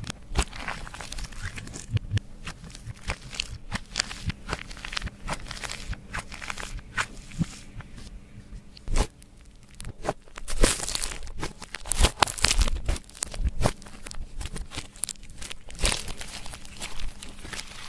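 Clear slime being worked by hand, squished, stretched and pressed, giving irregular sticky crackles and popping clicks, with a busier, louder spell about ten seconds in.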